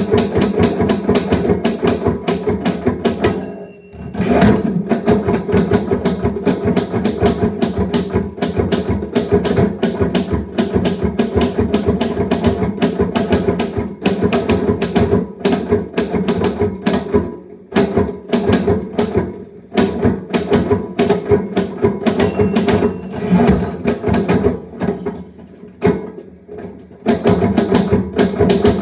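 Manual typewriter typed fast, a dense run of key strikes. Twice the end-of-line bell dings and the typing stops for a moment, about three seconds in and again near the end.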